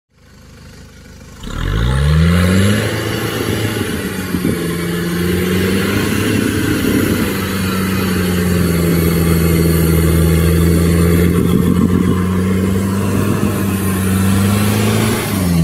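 Electric winch on an off-road buggy hauling it up a steep slope on its rope. The motor whine starts about a second and a half in with a rising pitch and runs steadily under load. Its pitch rises again near the end.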